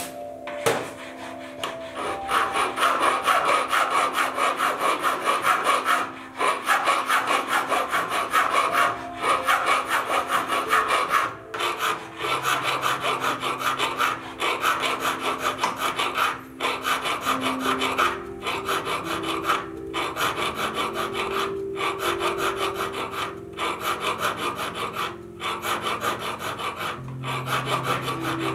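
A steel hand file rasping back and forth across a 14k champagne-gold ring held against a wooden bench pin, shaping the band's soft rounded profile by hand. The strokes run in quick series, broken by short pauses every few seconds.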